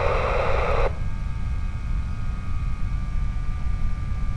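Air traffic control radio channel between transmissions: a short hiss of static that cuts off about a second in, then a steady low rumble with a faint hum.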